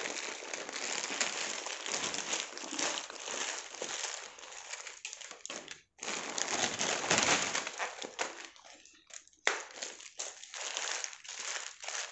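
Plastic parcel wrapping and a plastic bag crinkling continuously as they are handled and opened, with small zip-lock packets of beads and stones rustling against each other. There is a short pause about six seconds in, then the loudest stretch of crinkling, and scattered crackles near the end.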